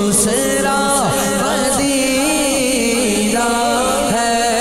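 A man's voice singing a naat in long, ornamented notes that slide up and down in pitch, over a steady low drone.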